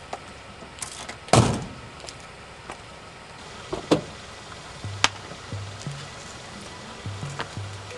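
A car door shuts with a heavy thunk about a second in, then scattered sharp clicks of high-heeled shoes on pavement. About five seconds in, a rhythmic bass line starts up underneath.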